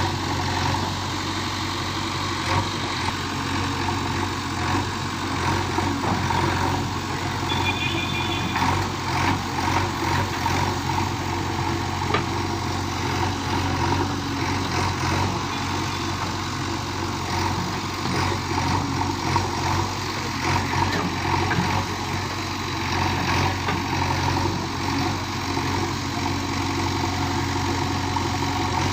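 JCB 3DX backhoe loader's diesel engine running steadily, its level swelling a little now and then.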